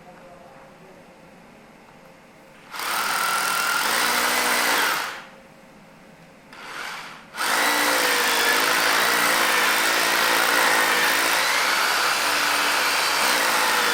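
Electric drill boring a hole into the pool's masonry for pressure-grouting injection. It starts about three seconds in and runs for two or three seconds, stops, gives a short burst, then runs steadily to the end.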